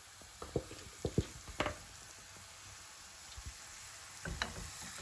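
Marinated chicken thighs sizzling faintly in hot oil in a frying pan. A few light knocks come in the first two seconds and again near the end as the pieces are handled in the pan.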